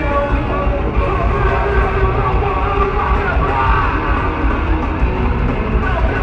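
Live rock band playing loudly, recorded from within the audience.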